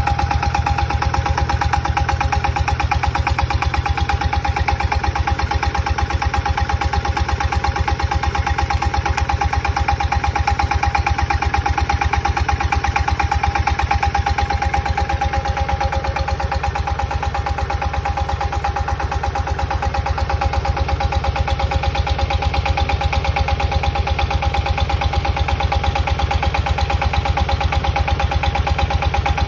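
Engines of a water-well drilling rig running steadily while drilling is under way, driving the drill and the pump that pushes muddy water out of the borehole. A fast, even chugging with a steady whine over it.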